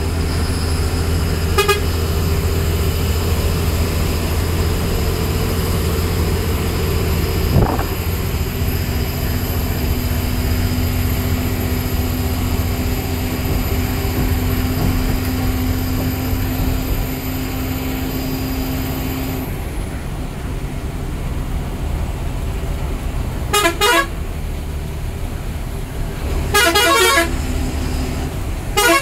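Ashok Leyland 180 hp bus diesel engine running steadily under way, heard from the driver's cab. Near the end a horn sounds three times in short, rapidly pulsing blasts, the loudest sounds here.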